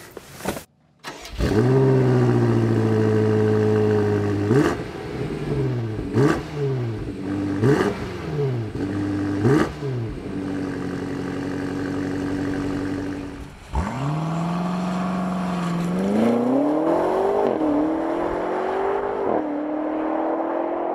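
BMW X5 M Competition's 4.4-litre twin-turbo V8 with its sports exhaust starting up with a flare of revs that settles to idle, then revved four times in quick blips, each with a short sharp crack. About fourteen seconds in, the SUV accelerates hard, the engine pitch climbing and dropping back at two upshifts.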